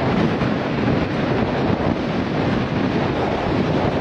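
An old truck driving through drifted snow in a blizzard: a loud, steady rush of wind and snow noise over the engine.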